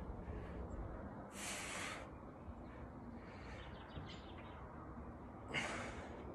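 A person breathing out hard twice, about four seconds apart, with the effort of reverse crunch reps.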